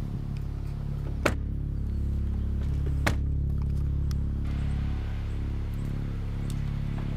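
Soundtrack music: a dark, steady synthesizer drone of low sustained notes, with two sharp knocks about two seconds apart.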